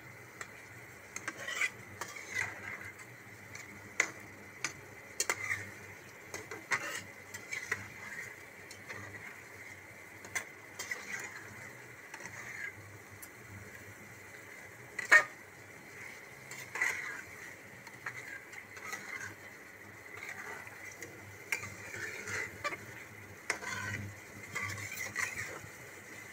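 Flat metal spatula stirring chicken and soya chunk curry in an aluminium pan, with irregular scrapes and clinks against the pan; one sharp clink about fifteen seconds in is the loudest.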